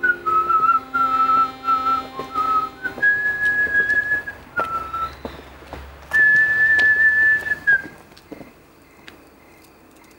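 A person whistling a slow tune: a run of short lower notes, then two long held higher notes, stopping about eight seconds in. Faint clicks run underneath.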